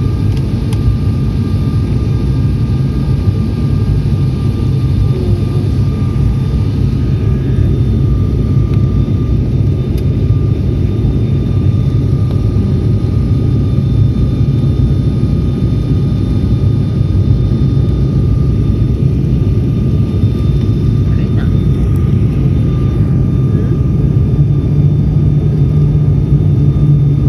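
Airliner cabin noise during the descent: a steady, loud drone of the engines and airflow with a thin steady whine over it. The low drone grows a little louder near the end.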